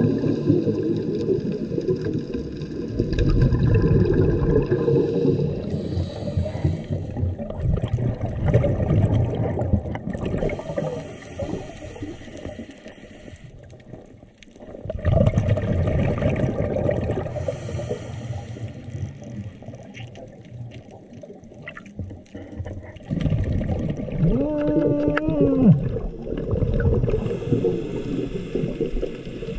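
Underwater ambience picked up by the camera: a shifting low rush of moving water with gurgling, dipping quieter around the middle. Near the end a short pitched hum with overtones swells and then bends down.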